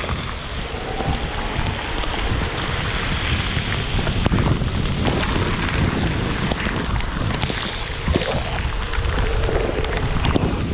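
Wind buffeting the microphone over a steady hiss of rain and tyres on a wet road, from an electric scooter ridden through the rain, with a few brief knocks.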